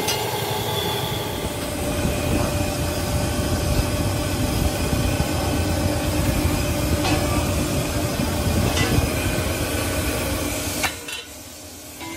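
Steel wheel rim spinning in a rim-rolling machine, a steady metal-on-metal rolling rumble with a faint steady tone and a few sharp clicks. The machine stops abruptly about eleven seconds in.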